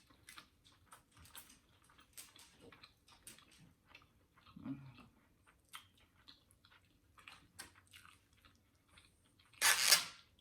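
A person chewing takeout food close to the microphone: many small, soft mouth clicks. A brief low hum comes about halfway through, and a short, loud, noisy burst comes near the end.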